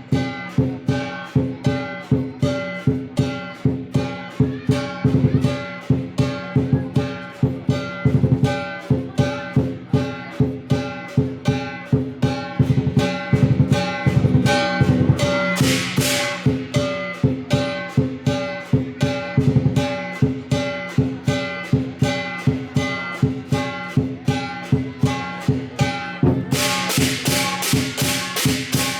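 Lion dance accompaniment music: a steady fast beat of struck strokes over ringing metallic tones. A short burst of cymbal crashes comes about halfway through, and rapid cymbal clashing takes over near the end.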